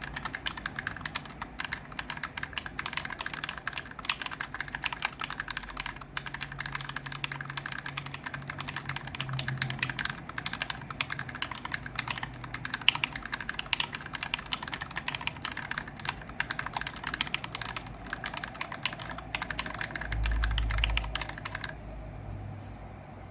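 Fast, continuous typing on an Idobao Abacus ID42 40% aluminium-case keyboard with lubed Gateron Yellow milky-housing linear switches on an integrated aluminium plate: a dense run of keystroke clicks. Near the end a brief low rumble comes up and the typing stops.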